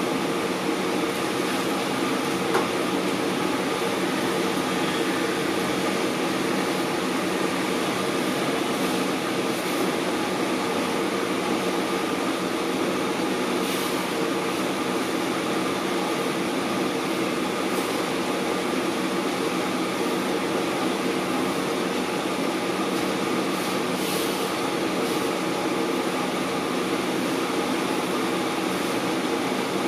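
A steady mechanical drone with a low hum in it, with a couple of faint ticks.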